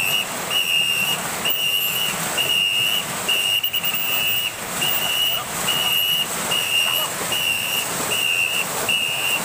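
A pacing whistle blowing short, evenly spaced blasts at one high pitch, about three every two seconds, setting the stroke rate for a ngo-boat crew paddling hard. Under it runs the steady churning splash of many paddles striking the water together.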